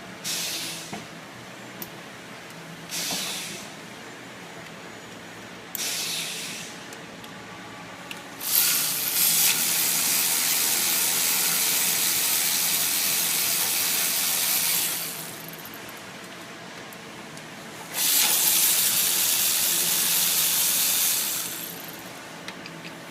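Hissing spray from a nozzle: three short bursts, then a long blast of about six seconds and another of about three and a half, over a steady low hum.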